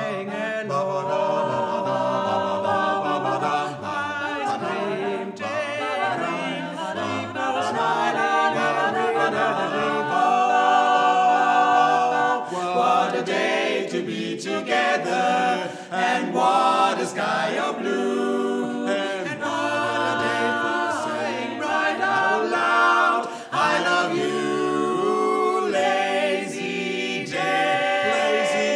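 Barbershop quartet of three women and one man singing a cappella, four voices in close harmony with no instruments.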